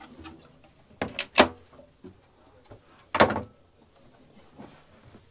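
Wood-veneer cabin cupboard door and its latch being handled: three quick clicks and knocks about a second in, then a single louder knock about two seconds later.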